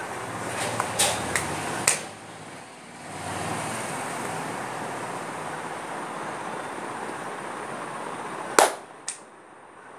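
Steady background noise with a few sharp knocks or clicks: a quick cluster of three near the start, then a louder knock and a fainter one near the end.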